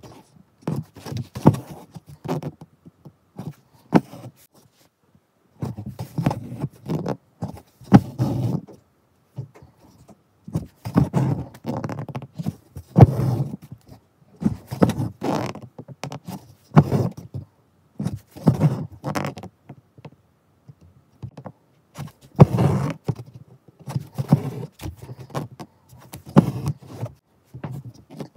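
Hand embroidery in chain stitch heard close up: rustling and scraping of cloth and thread as the needle goes through the fabric and the embroidery thread is drawn through, in irregular bursts every second or two.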